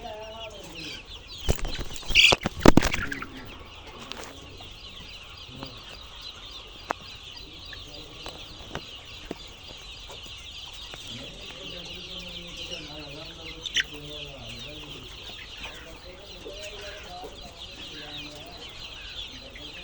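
A crowd of chicks peeping continuously, with hens clucking in the second half. A burst of loud clattering knocks comes about two seconds in.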